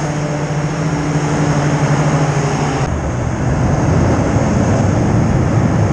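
RNLI inshore rescue hovercraft running at speed, a loud steady engine and fan drone with a rushing hiss over it. The hiss drops away sharply about three seconds in, and the drone carries on a little lower.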